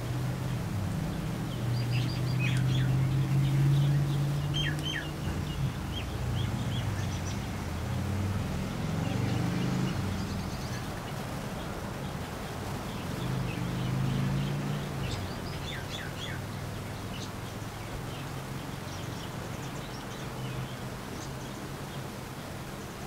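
Birds chirping in short, falling calls, in clusters a few seconds in and again past the middle, over a low droning hum that swells twice, loudest a few seconds in.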